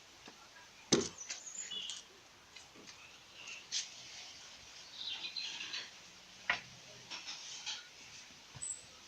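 A few sharp knocks and clicks, with faint bird chirps in between.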